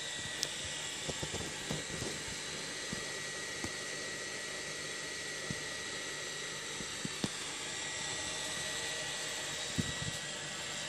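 Steady hiss with a thin high whine from running aquarium equipment, with scattered faint clicks.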